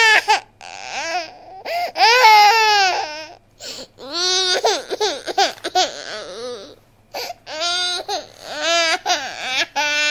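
High-pitched crying: a run of drawn-out wailing cries, rising and falling in pitch, broken by short pauses.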